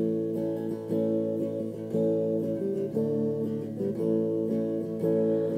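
Acoustic guitar strumming chords with no singing: an instrumental break between verses of a folk song.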